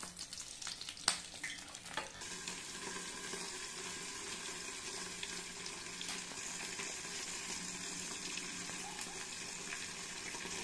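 Oil sizzling steadily in a hot non-stick frying pan, with two sharp clicks of a metal spoon against the pan about one and two seconds in.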